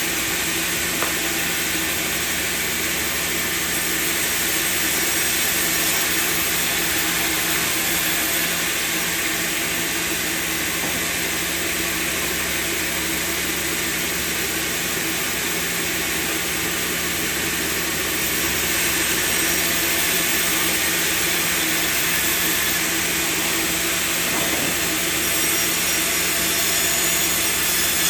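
Sawmill machinery running steadily: a constant motor hum under a broad, even hiss, with no separate strikes or pauses.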